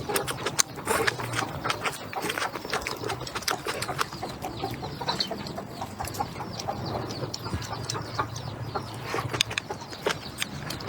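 Eating sounds: chewing and mouth smacks with many small, irregular clicks throughout.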